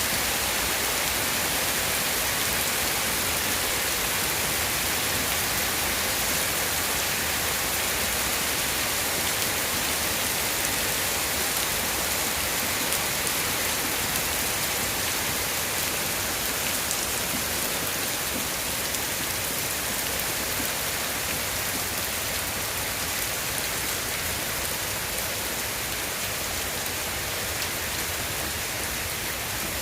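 Steady heavy rain falling and pattering on surfaces, a dense even hiss with scattered drop ticks.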